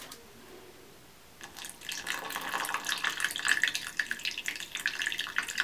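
Apple cider vinegar poured from a bottle into a glass bowl of bentonite clay powder, the pour starting about a second and a half in.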